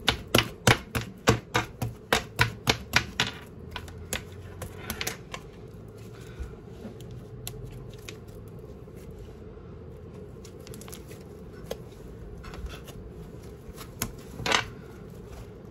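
Quick sharp taps and clicks of fingertips on a tabletop, picking up spilled sprinkles by hand: about three a second for the first few seconds, then sparser and fainter, with one louder knock near the end.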